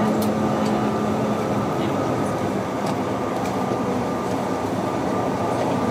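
Cabin noise of a Bombardier CRJ-900LR taxiing: a steady hum and rush from its rear-mounted General Electric CF34 turbofans at taxi power, with a thin high whine and a few faint clicks and rattles.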